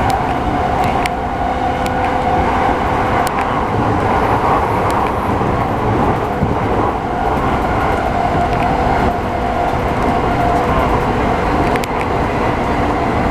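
E217-series electric commuter train pulling out of a station: a steady loud rumble with a constant whine, and a few sharp clicks.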